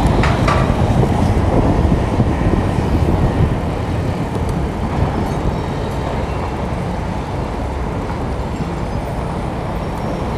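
Steady low wind and road noise picked up by a camera riding on a moving bicycle in city traffic, slightly louder for the first couple of seconds.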